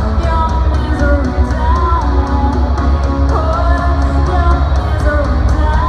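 Live rock band playing in a concert hall, loud and bass-heavy: drums with a steady hi-hat, guitar, and a female lead vocal line gliding between notes.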